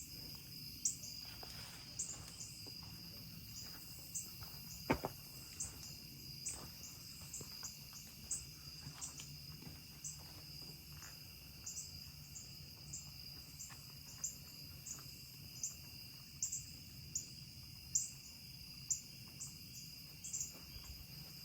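Insects calling: a steady high drone with short, high chirps repeating about once or twice a second, and a single faint click about five seconds in.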